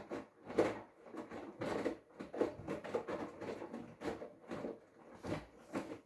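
Hoover front-loading washing machine drum tumbling wet laundry at the start of a prewash, the clothes swishing and flopping over in irregular surges about one to two times a second.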